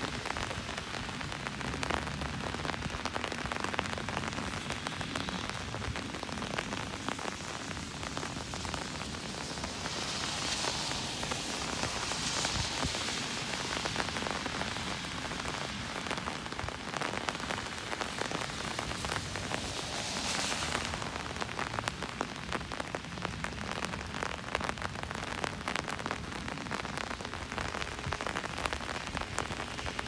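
Steady rain pattering on an umbrella, dense drops ticking close by. A louder hiss of car tyres on the wet road swells and fades twice, about ten and twenty seconds in.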